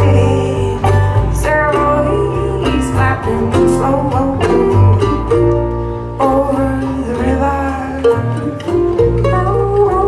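Live acoustic string band playing a folk tune, with banjo and acoustic guitar picking over plucked upright bass.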